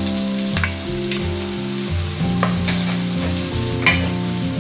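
Diced pork sizzling in hot oil in a wok with garlic and onion, with some stirring, under background music with a steady beat.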